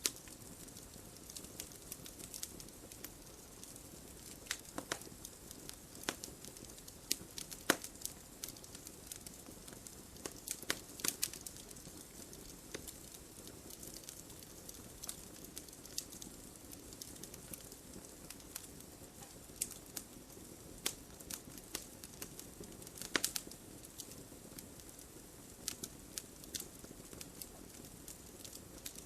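Wood logs burning in a fireplace: a steady low hiss of the flames with frequent sharp crackles and pops, a few of them louder snaps.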